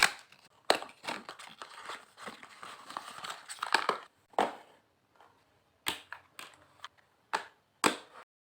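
Speed-cube packaging being opened by hand: crackly crinkling and tearing of plastic wrapping for a few seconds, then a few separate sharp clicks and taps as the box is handled.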